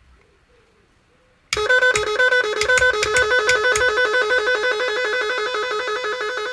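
Magic 18 electronic musical car horn starting a tune through its twin horn speakers about a second and a half in: loud, quick notes alternating between two pitches. The tune is one of the range of tunes this horn plays, changed by working its switch.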